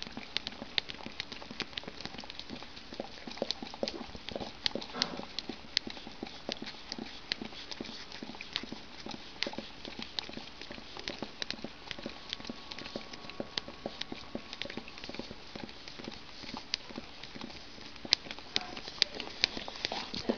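Two Labrador retrievers licking and lapping the last of a dessert from a small plastic pot: a fast, irregular run of wet tongue clicks and smacks, several a second.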